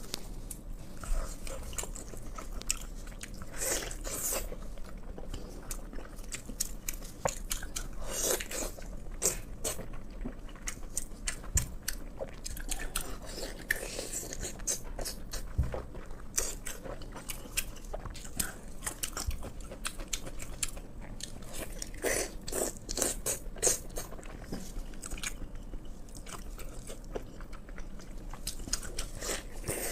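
A person biting and chewing cured pork (la rou), a run of irregular clicks coming in clusters of mouth sounds.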